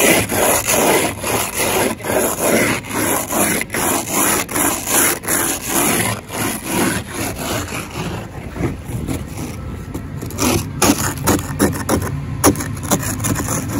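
An ice scraper scraping frost off a car windshield in quick back-and-forth strokes, about two to three a second. Near the end it slows to a few separate scrapes.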